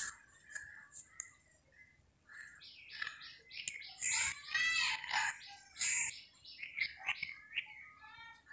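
Small birds chirping and calling, with a fast run of repeated chirps from about two and a half seconds in.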